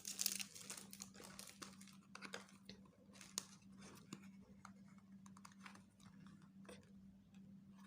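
Faint handling of product packaging: scattered small clicks, crinkles and taps, a little busier in the first second or so, over a low steady hum.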